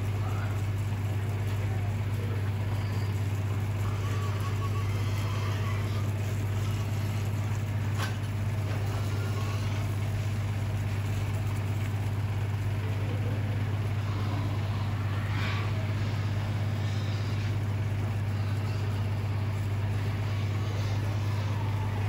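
Steady low drone of an idling truck engine, with faint scattered pig squeals and grunts over it and a single click about 8 seconds in.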